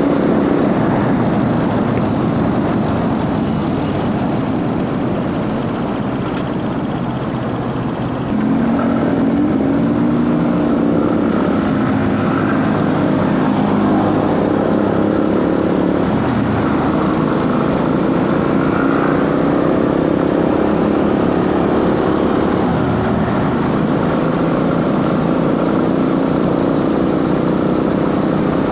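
Motorcycle engine running while riding, with chain noise and intake sound in the mix. About eight seconds in it gets louder and the engine note rises, then holds steady.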